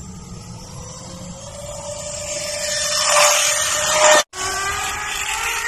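Model train running along its track: a steady electric-motor whine over a noisy rush of wheels on rails, growing louder toward the middle. It cuts off abruptly about four seconds in, then the same kind of running sound resumes at a slightly lower pitch.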